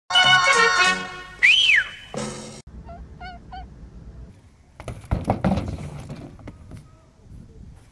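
A short comic jingle with a honking tone that swoops up and back down, cutting off after about two and a half seconds. A few faint squeaky chirps follow. Then comes a clatter and scrape as a rider and bike crash onto concrete.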